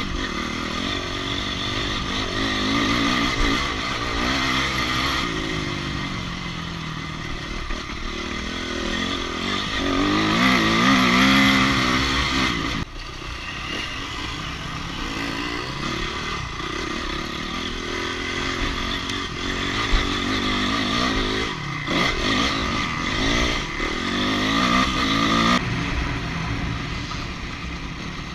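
Enduro motorcycle engine heard from on the bike as it is ridden over a rough dirt-and-grass trail, its pitch rising and falling with the throttle. It runs loudest about ten to twelve seconds in, cuts back suddenly just before thirteen seconds, and drops again near the end.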